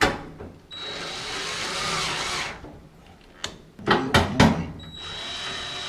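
Cordless drill driving screws back into a dryer panel. The motor runs twice for about two seconds each time, with a thin whine over a grinding rush, and there are a few sharp clicks and knocks between the runs.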